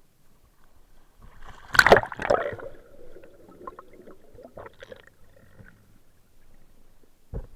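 Water splashing and gurgling around the camera, loudest about two seconds in, then settling into a low bubbling with scattered small clicks; a short knock comes just before the end.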